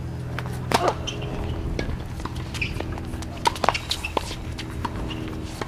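Tennis doubles point on a hard court: a serve struck about a second in, then the ball being hit and bouncing in a rally, sharp pops at irregular intervals of about a second, with footsteps on the court between them.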